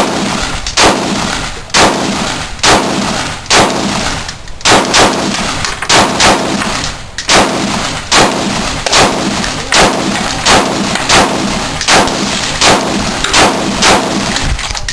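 A long run of gunshots, about twenty, spaced irregularly at roughly one to two a second, each with a short ring of echo after it.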